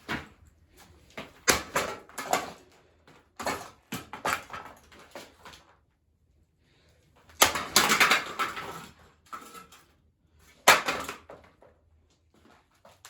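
Metal ceiling fan parts being smashed: irregular hard crashing blows, about half a dozen, with a longer rattling crash about halfway through and a last sharp hit about three-quarters of the way in.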